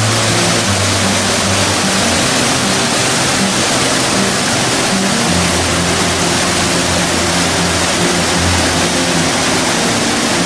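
Mountain creek white water rushing and splashing over boulders and logs, a steady full hiss, with low held music notes underneath.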